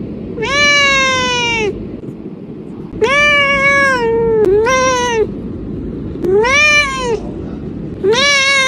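Domestic cat meowing: five drawn-out meows in a row, each up to about a second and a half long, holding or rising in pitch and then sliding down at the end.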